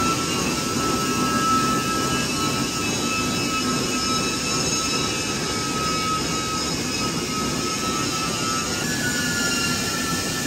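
Steady roar of heavy pipe-mill machinery on a factory floor, with a high steady whine running through it and a second whine sliding slightly lower near the end.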